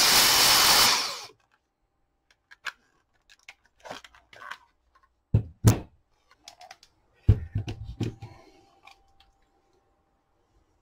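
Dyson DC35 handheld vacuum motor running on max, then stopping abruptly about a second in: the aged battery pack cutting out under load. After that come scattered plastic clicks and knocks as the battery pack is handled.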